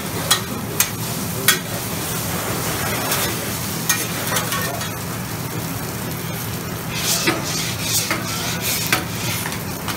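Food sizzling on a Mongolian barbecue flat-top griddle as a cook stirs and turns it, with scattered sharp clicks and scrapes of utensils against the steel surface and a surge of sizzle about seven seconds in. A steady low hum runs underneath.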